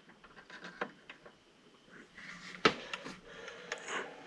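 Steel wrench tightening a steel AN hose-end fitting onto a stainless-braided PTFE hose held in a vise: faint scattered metal clicks and scrapes as the fitting is cranked down, with one sharper click a little before three seconds in.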